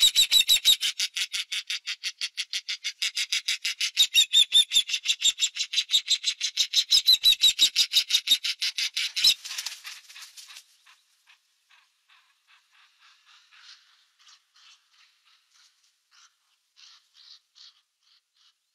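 Ospreys calling: a fast series of high, shrill chirps, about six a second. The calls are loud for the first nine seconds or so, then fade to faint, scattered calls.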